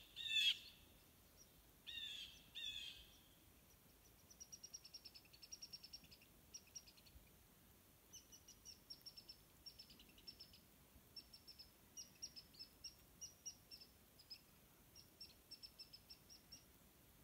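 Wild birds calling. A few harsh calls come in the first three seconds, then short bursts of rapid, high, clipped notes repeat through the rest.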